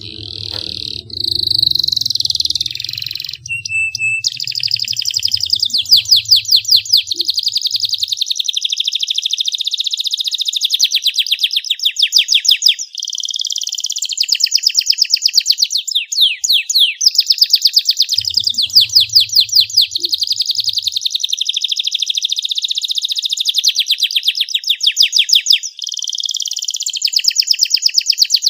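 Canary singing a long, clear song of fast trills and rapid repeated sweeping notes, broken only by a few short pauses.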